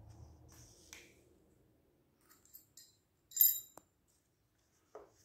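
Small steel engine parts clinking as they are handled on a truck cylinder head: a few light clicks, then one bright, ringing metal clink about three and a half seconds in, and a dull knock near the end.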